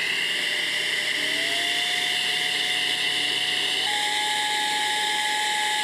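Cordless mini turbo air blower running flat out: a loud, steady rush of air with a high motor whine that climbs in pitch and steps up sharply about four seconds in.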